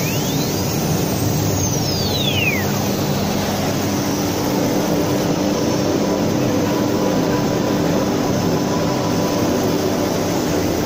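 1325 CNC router's spindle running as it cuts a wooden board: a steady mechanical hum with a few steady tones in it. A high tone sweeps up and then back down over the first three seconds.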